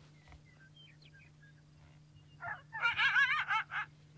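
Coyote barking and yipping at a decoy dog: a quick run of wavering, warbling high calls lasting about a second and a half, starting a little past halfway.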